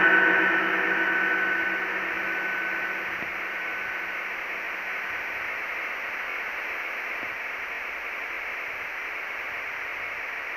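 Steady white-noise hiss from the GhostTube ghost-hunting app played through a phone speaker, thin in the bass. Over the first few seconds it is louder and carries several faint steady tones that fade out.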